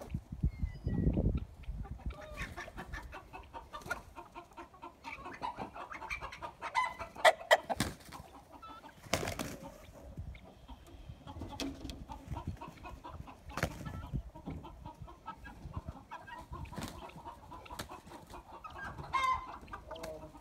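Chickens clucking and calling in short, scattered notes, broken by sharp clicks and a few louder short noises.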